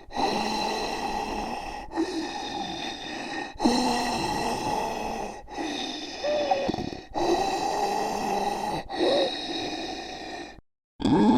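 A run of zombie vocal sound effects: rasping gasps, snorts and groans, in about six short takes of a second and a half to two seconds each, split by brief breaks. A short silence falls near the end.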